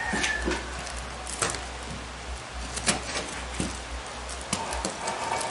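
A utility knife cutting and scraping at the cardboard packing inside a wooden crate, giving irregular scratches and small clicks.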